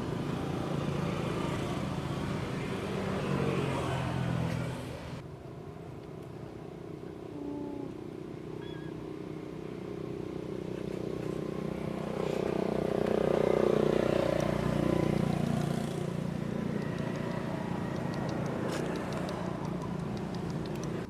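Road traffic: motor vehicle engines running and passing. The loudest pass comes about two-thirds of the way through.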